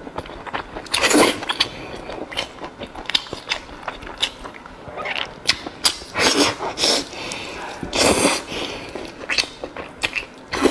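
Close-miked eating sounds: wet mouth clicks and chewing of chewy stuffed meat, with several loud slurping sucks, once about a second in and again between about six and eight seconds in.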